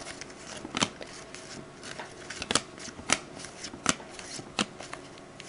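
2014 Topps football trading cards being flipped through by hand: a low rustle of card stock with several sharp clicks, one every second or so, as each card is slid off the stack.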